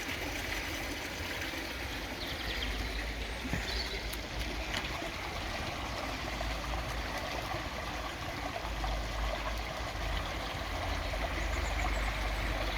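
Water trickling and splashing steadily down a newly built garden koi pond waterfall into the pond.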